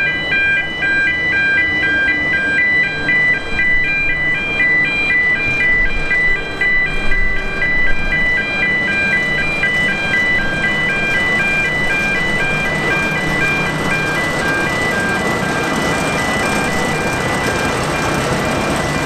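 Road level-crossing audible warning alarm sounding a rapid, evenly repeating two-tone yodel. From about halfway through, a small narrow-gauge locomotive's engine running as it crosses grows louder while the alarm fades.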